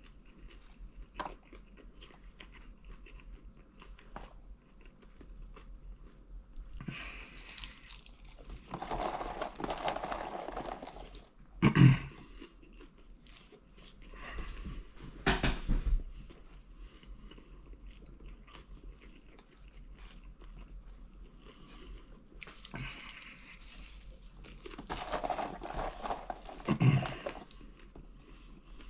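A person chewing mouthfuls of popcorn with a steady crunch, broken by several louder noisy stretches and two sharp knocks, one about twelve seconds in and one near the end.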